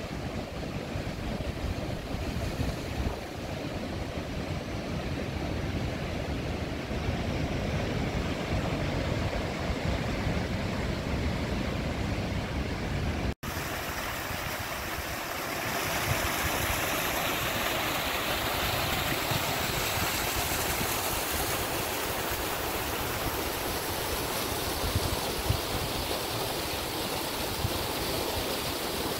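Steady low rush of heavy ocean surf and wind. After an abrupt cut about halfway through, it changes to the brighter, steady rushing and splashing of a small stream tumbling over rocks.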